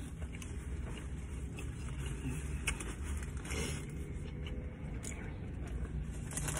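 Steady low rumble of a car heard from inside the cabin, with a few faint rustles near the middle.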